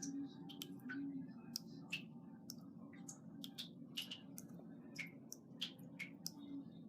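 Water dripping from a tap left running to keep the pipes from freezing in the cold. The drops fall at an irregular pace of about two a second, each a short sharp drip, over a faint low steady hum.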